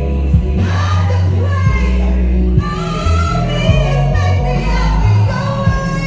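A woman singing a gospel song into a microphone over amplified accompaniment with a heavy bass line whose notes change every second or so.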